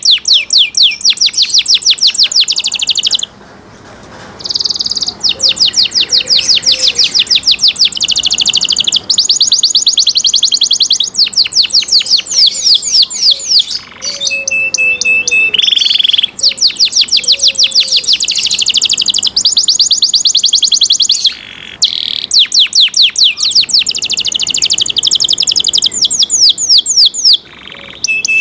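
Domestic canary singing: long runs of fast, high trills in phrases broken by short pauses, with a steady held whistle a little past halfway.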